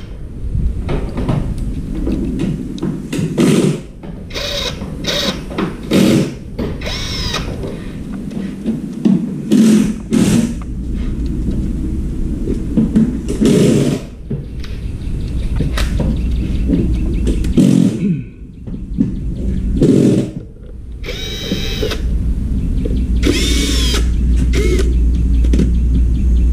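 Cordless drill-driver run in repeated short bursts, with a whining motor pitch, over a steady low hum.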